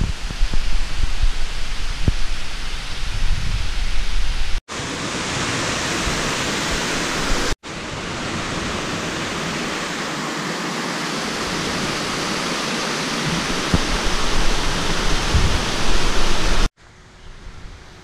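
Waterfalls rushing down a rock face, a loud, steady, even rush of falling water. It is interrupted by abrupt cut-offs, with low rumbles on the microphone in the first few seconds, and it drops to a much quieter background near the end.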